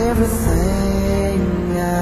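Slow song: a voice slides up into a long held note over sustained chords and a steady low bass.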